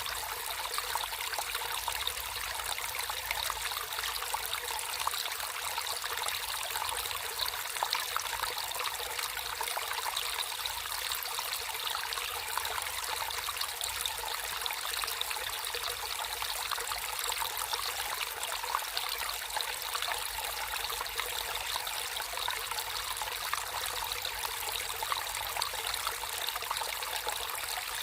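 Naturally flowing water trickling and splashing steadily. It is an even, unbroken hiss that sits mostly in the high range, with little low rumble.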